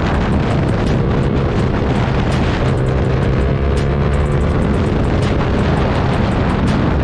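Yamaha R15 V3's 155 cc single-cylinder engine running through an SC Project S1 aftermarket exhaust, loud and held at fairly steady revs.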